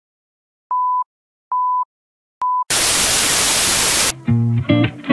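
Film-countdown leader beeps: three short, steady, high beeps under a second apart, the last one shorter. Then a loud burst of TV static hiss for about a second and a half, cutting off into a few short musical notes near the end.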